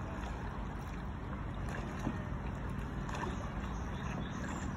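Steady low rumble of wind on the microphone over open water.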